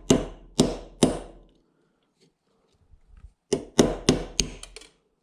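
Hammer blows on a 5/64 pin punch, driving the bolt catch roll pin out of an AR-15 lower receiver: three firm strikes, a short pause, then a quicker run of about five lighter taps as the pin works free.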